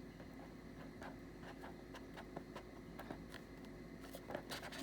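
Faint scattered clicks and rustles of a cardboard card-deck box being opened by hand, with a few louder scrapes and taps near the end.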